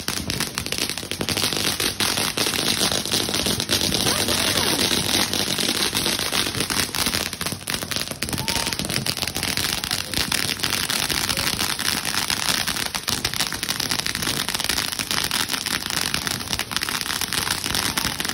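Ground fountain fireworks spraying sparks, giving a dense, continuous crackling that keeps up at a steady level.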